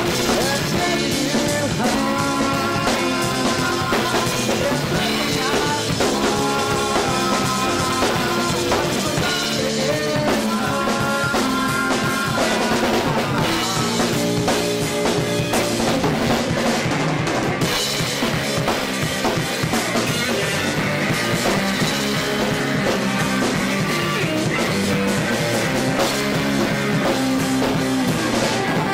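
Rock trio playing a song together: drum kit, electric bass and a Stratocaster-style electric guitar, with the bassist singing into a microphone. A raw, unmixed room recording of a home rehearsal.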